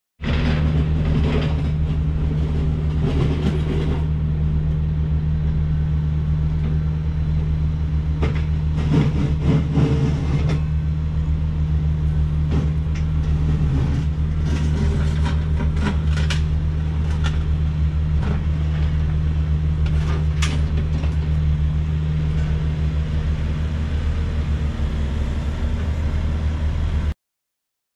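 Diesel engines of heavy construction equipment (a wheel loader and dump trucks) running steadily: a low, even drone with scattered knocks and clanks. It cuts off abruptly near the end.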